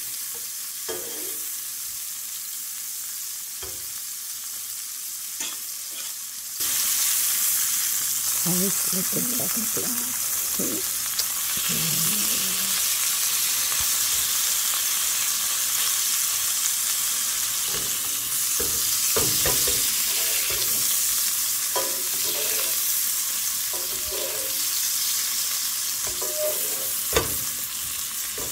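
Steak searing in butter and oil in a hot skillet, sizzling steadily. The sizzle grows suddenly louder about six seconds in. A few light knocks of utensils against the pan are heard.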